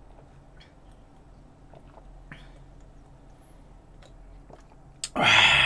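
A man swigging from a glass beer bottle, with faint swallowing clicks. About five seconds in comes a sudden loud, raspy exhale after the drink, fading slowly.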